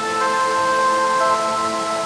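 Background music of slow, long-held notes that change pitch every second or so.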